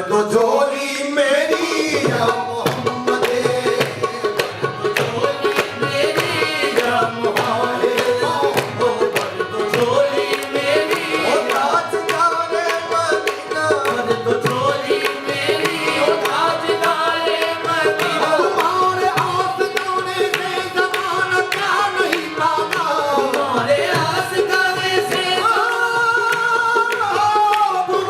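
Qawwali music: tabla drumming a rapid rhythm under a stepping melody with singing.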